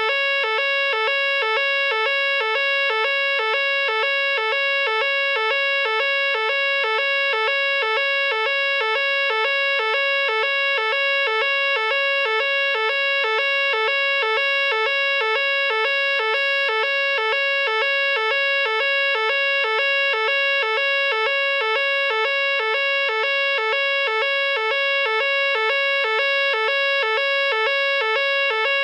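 A Nugelec fire alarm sounder going off during a test. It sounds its evacuation tone without a break: a loud, evenly pulsed electronic tone that repeats rapidly and steadily.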